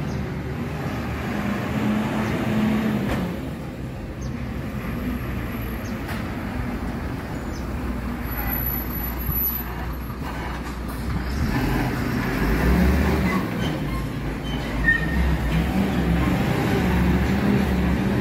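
Six-cylinder diesel engine of a MAN TGM 18.290 recycling compactor truck running as the truck drives past. It is a continuous low drone that grows louder in the second half.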